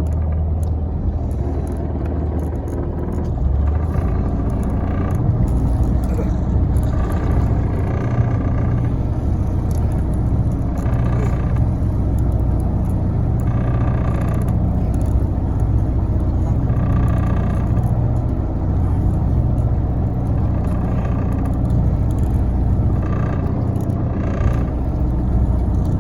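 Boat engine running steadily at idle, a low even rumble, with a fainter higher-pitched sound recurring about every three seconds.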